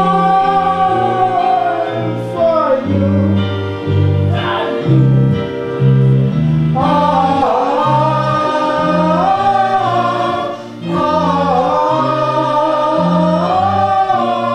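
Live stage song: several voices singing together in harmony, holding long notes with vibrato, over an instrumental accompaniment with a moving bass line, with a brief break about eleven seconds in.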